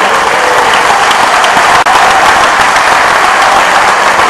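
Crowd of spectators applauding, loud and steady throughout.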